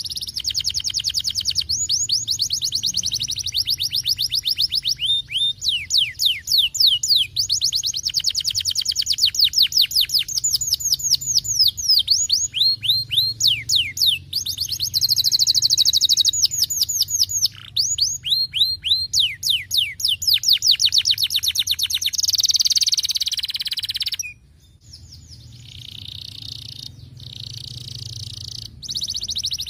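Domestic canary singing a long run of rapid trills, each made of quick down-sweeping notes repeated many times a second, switching from one phrase to the next. The song breaks off briefly about 24 seconds in, then picks up again with faster, buzzier trills.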